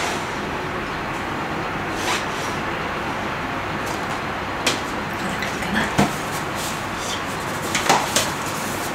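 Latex balloon being blown up and handled: a few short squeaks and rubs of the stretched rubber, with a small cluster of them near the end as the neck is tied off, over a steady hiss.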